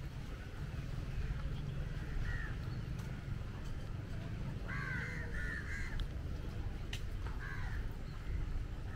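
Crows cawing: one caw about two seconds in, a quick run of three around the middle, and another near the end, over a steady low rumble.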